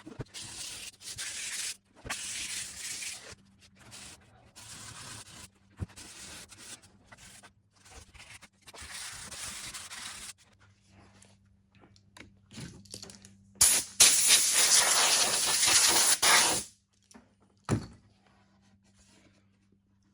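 Hand sanding on painted wood: short rasping strokes with brief pauses, sanding through the paint to give a worn look. Near the end comes a louder steady hiss lasting about three seconds, then a single thump.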